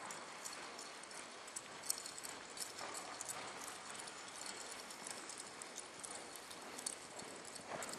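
A reining horse's hooves on soft sand arena footing: muffled, irregular clip-clop as it moves at a slow gait under saddle, over a steady background hiss.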